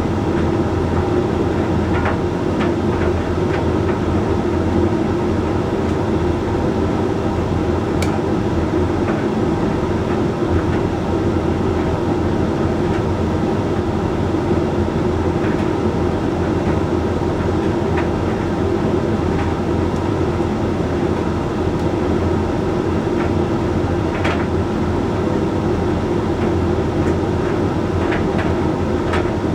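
Hoover Link X Care HLX C10DRGR condenser tumble dryer running mid-cycle on a Whites program: a steady motor and fan hum with the drum turning, and a few faint taps now and then.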